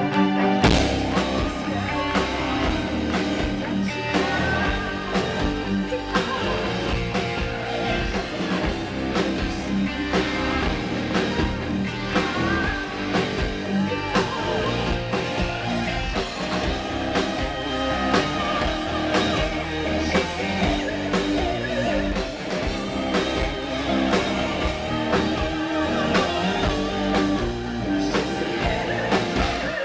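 Symphonic metal band playing live at a steady loud level: drums, electric guitar and keyboards, with a woman singing lead into her microphone.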